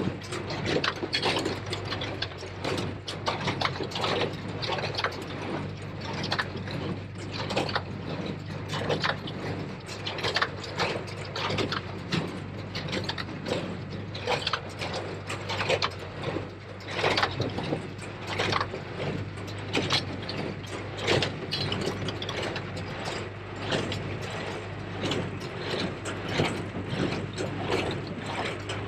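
New Holland 273 square baler working in hay: a constant clatter of clicks and knocks from its mechanism over the steady drone of the Case IH JX75 tractor's engine.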